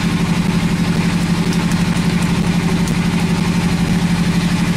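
Engine aboard a fishing boat running steadily: a low, even drone with a fast, regular throb.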